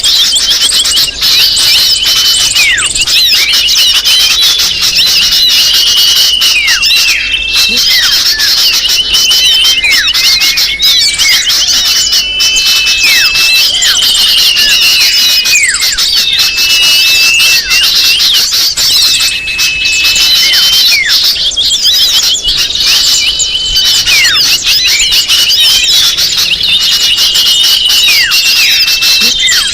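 Bird-luring (pikat) call recording: a dense, loud chorus of small-bird chirps, trills and short downward-sweeping notes, with the same phrases repeating over and over.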